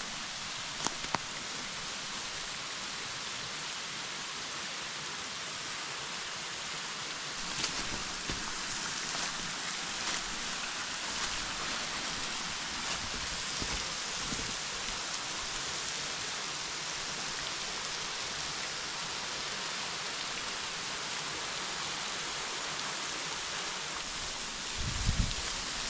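Steady rushing hiss of a tall, narrow waterfall's falling water, getting a little louder about seven seconds in. A few light clicks and a short low thump near the end.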